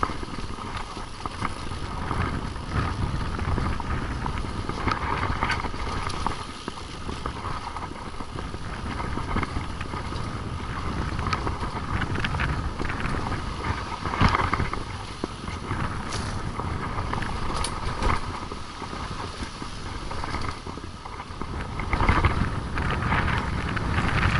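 Wind buffeting a moving action camera's microphone on a mountain bike descending a dirt trail, under the rumble of tyres on dirt and the clatter of the bike over bumps, swelling louder twice.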